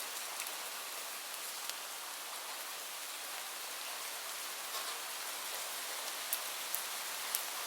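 Steady rain falling, an even hiss with the sharp ticks of single drops landing close by, a few louder ones near the end.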